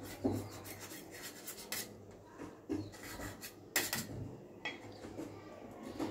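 Knife sawing through crisp fried bread omelette, rasping, with the blade scraping and clicking against a steel plate. There is a sharper clink about four seconds in.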